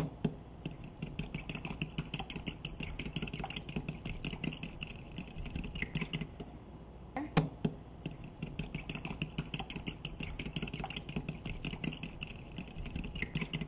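Fork beating eggs and milk together in a bowl: a fast, steady clatter of the tines against the bowl, with one louder knock about seven seconds in.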